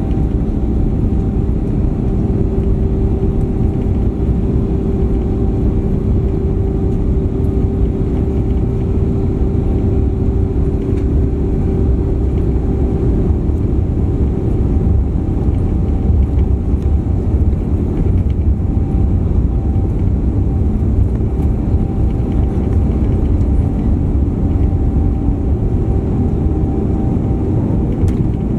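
Airbus A350-900's Rolls-Royce Trent XWB turbofans at takeoff thrust during the takeoff roll, heard inside the cabin beside the engine: a steady loud rumble of engines and runway with a steady hum over it. The airliner rotates for liftoff near the end.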